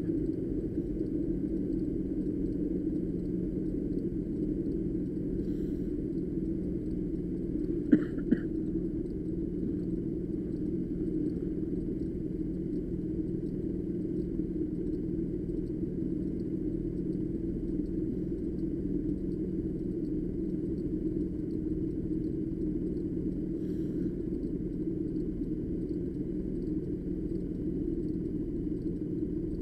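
Street go-kart engine running steadily, a low rumble. There are two short clicks about eight seconds in.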